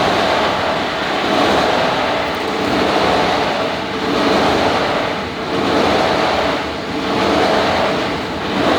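Plastic bottle grinder (granulator) running, a loud continuous churning noise that swells and eases about every second and a half.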